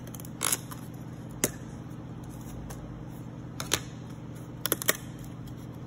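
Thin laser-cut plywood sheet being handled and flexed, giving a few scattered sharp wooden clicks and taps, with a quick run of three about five seconds in.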